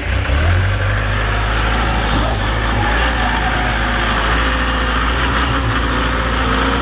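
Hoàng Giai wheel loader's diesel engine running steadily at close range, a constant low drone.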